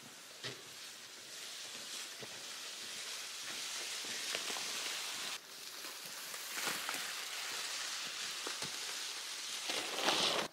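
Leafy cut olive branches rustling and scraping as they are carried and dragged through grass. The rustle is steady, breaks off abruptly about halfway through, then resumes and grows louder near the end.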